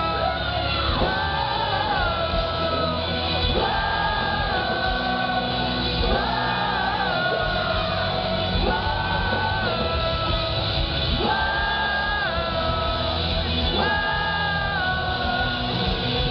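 Live rock band playing loud through the stage PA, with a high, held melody line in phrases that come back every two to three seconds over dense guitars and drums.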